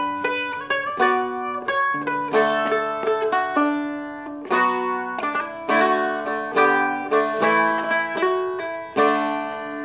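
Seagull Merlin M4 four-string fretted instrument being picked and strummed through a chorus melody: a steady run of bright, ringing plucked notes and strums.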